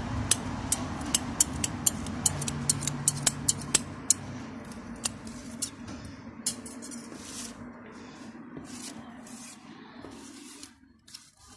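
Scissors snipping plant stems in quick succession, about two to three sharp snips a second, thinning to a few scattered clicks after about four seconds.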